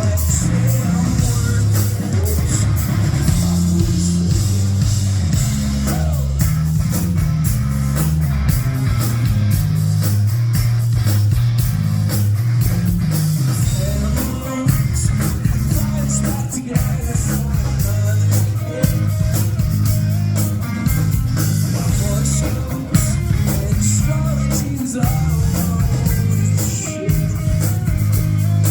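Live rock band playing loudly: electric guitars, bass and drum kit.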